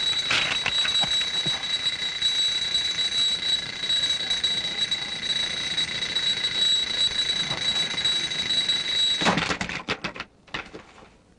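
Alarm clock ringing steadily at a high pitch, then cut off about nine seconds in by a hard smack as a hand smashes it. A few faint clicks follow.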